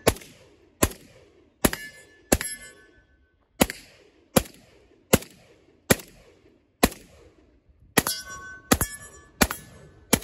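Romanian WASR 10/63 AK rifle firing 7.62×39 in semi-automatic: about thirteen shots, roughly one every three-quarters of a second, with one longer pause about three seconds in. A short metallic ring follows several of the shots.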